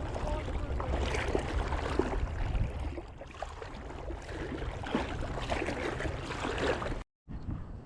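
River water splashing and sloshing, with wind rumbling on the microphone for the first few seconds; the sound cuts out completely about seven seconds in and comes back quieter.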